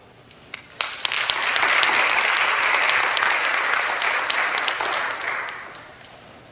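Audience applauding at the end of a musical number. A few scattered claps come first, then the applause swells within a second or so, holds steady, and dies away near the end.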